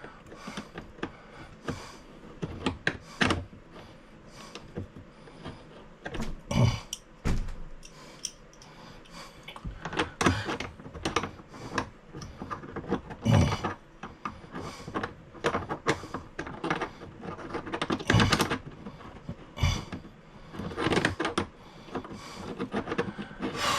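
Irregular clicks, knocks and rattles of hand-handling: parts and tools knocking about while a bidet water-line connector is worked onto a T fitting in a cramped space. The louder knocks come every few seconds.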